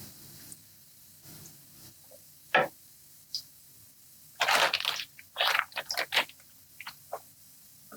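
Floured chicken cutlets going into hot oil and butter in a skillet: short, irregular bursts of sizzling and crackling, densest and loudest in the middle, with a faint low steady hum underneath.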